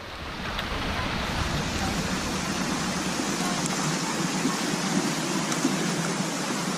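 Steady rush of water from a waterfall and creek running high.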